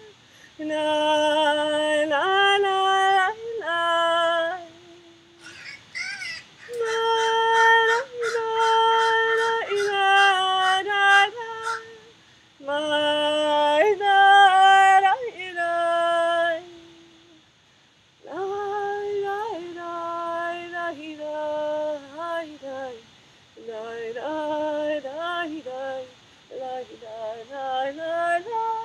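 A woman singing a wordless Jewish niggun solo and unaccompanied, moving through held notes in stepwise phrases with brief breaks between them, the longest about two thirds of the way through.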